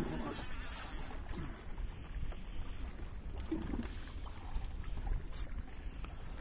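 Steady low rumble of wind and sea around a small fishing boat, with a short hiss in the first second.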